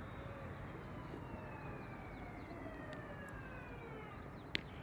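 A distant siren, its wail sliding slowly down in pitch, under the open-air hum of the field. Near the end a single sharp smack, the pitch popping into the catcher's mitt.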